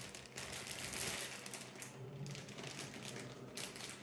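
Toy packaging rustling and crinkling in irregular handling sounds as hands rummage through it.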